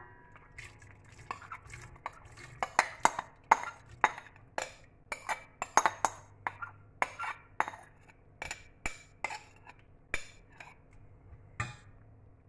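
Metal spoon scraping and clinking against a ceramic bowl and a stainless steel saucepan as soaked dried fruit is scraped out into the pan: a run of sharp clinks and scrapes, two or three a second, stopping shortly before the end.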